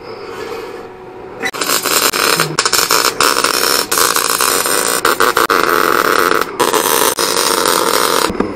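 MIG (wire-feed) welder arc crackling steadily as a weld bead is run on the steel hitch. It starts about a second and a half in, breaks off briefly near the end, picks up again and stops just before the end.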